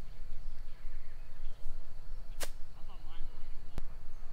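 Golf club striking a ball on a chip shot from grass: a sharp click about two and a half seconds in, with a fainter click just over a second later.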